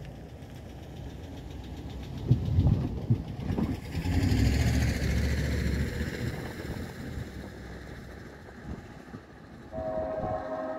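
Distant CN SD70M-2 locomotive's Nathan K5LLA air horn starts sounding a steady chord near the end; the uploader notes its 4A chime is dead and its 1L chime strong. Before that, a low rumble with a falling hiss swells a couple of seconds in and fades.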